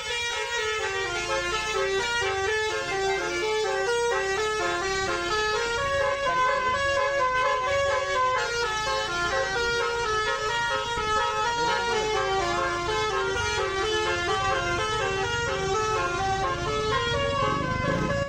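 Indonesian tour bus 'telolet basuri' multi-tone horn playing a fast melody of stepping notes. Low engine rumble grows near the end.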